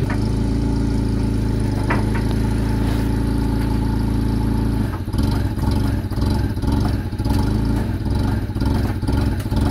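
Propane-fuelled Toyota forklift engine running steadily; about five seconds in the engine note turns uneven and pulsing.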